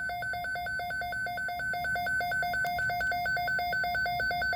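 Midland WR-300 weather radio's built-in alert alarm: a fast two-tone beeping, high and low tones alternating at about four beeps a second, loud and steady. It signals that the radio has received a weather alert.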